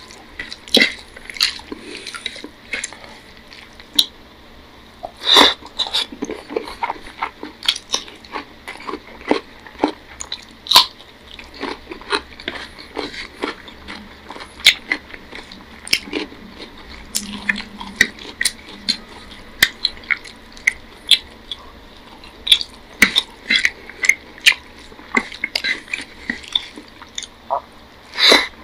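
Close-up eating sounds of rice and curry eaten by hand: wet squelches of fingers mixing the food on the plate, with chewing and lip smacks. They come as many sharp, irregular clicks, a few much louder than the rest.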